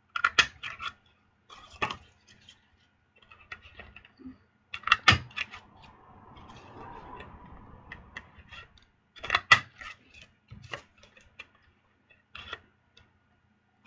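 Cardstock pieces being handled and pressed down on a work table: scattered taps and clicks, with a soft rustle of paper for a few seconds in the middle.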